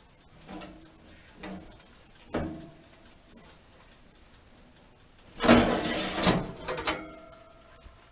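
Hands stirring drying fireweed leaves in a metal pan, with a few soft knocks, then a loud scrape about five and a half seconds in as the pan is pulled out over the electric oven's rack, ending in a brief metallic ring.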